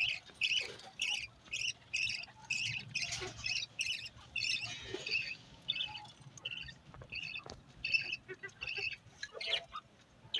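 Budgerigars squawking and chirping in a quick run of short, sharp calls, about two to three a second, thinning out for a couple of seconds in the middle.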